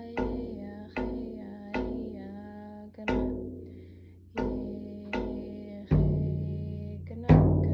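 Yup'ik frame drum (cauyaq) beaten with a wand in a steady dance beat, about one stroke a second, each stroke ringing on. Near the end the strokes turn louder and deeper.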